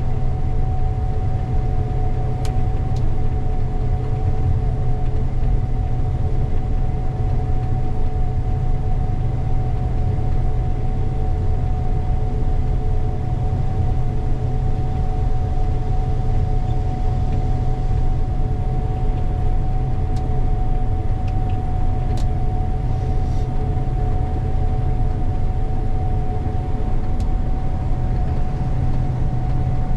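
Diesel engine of a harvest machine (combine or tractor) running steadily: a constant low drone with two steady whining tones above it and a few faint clicks.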